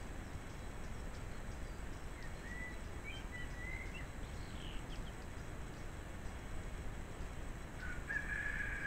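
A bird calling over a steady background hiss: a few short, faint whistled chirps in the middle, then one longer, louder call near the end.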